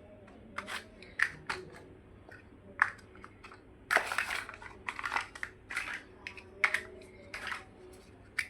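Plastic building-block pieces clicking and snapping as they are handled and pressed together, in irregular short clicks with a denser stretch of rattling handling about four seconds in.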